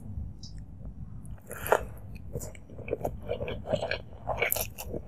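Close-miked mouth chewing a handful of rice mixed with chicken curry, eaten by hand: after a quieter start, a run of short chewing sounds, a few a second, begins about a second and a half in.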